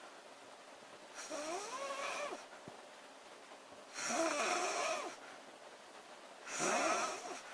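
A woman snoring loudly in her sleep: three snores, each about a second long and roughly two and a half seconds apart. The pitch of each snore wavers up and down.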